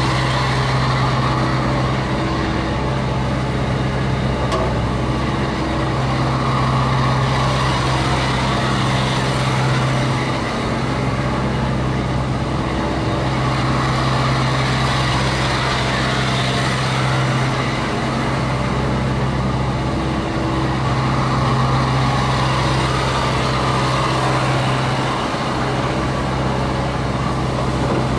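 Diesel engine of a Hyundai R55 mini excavator running steadily, its note swelling and easing every few seconds.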